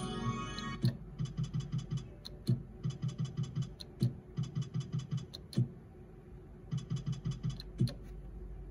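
Video slot machine spinning over and over. The tail of a win tune ends about a second in. After that, each spin starts with a sharp click and is followed by a quick run of five or six ticks as the reels stop, one spin about every second and a half.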